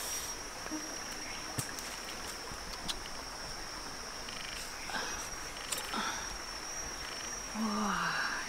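A short animal call, falling in pitch, near the end, over a steady high-pitched whine and scattered light clicks.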